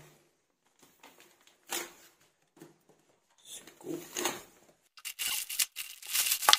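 Clear plastic packaging bag crinkling and rustling as a rifle scope in foam padding is handled and slid out of it, in short scattered rustles at first and a dense, louder crinkling for the last second and a half.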